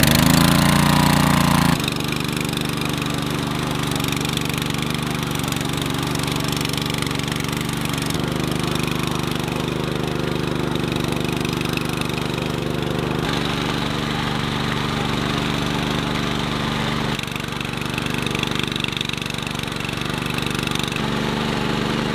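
Small engine of a walk-behind mini tiller running steadily while it churns and harrows a flooded rice paddy. It is louder for the first two seconds, and its tone changes abruptly a few times.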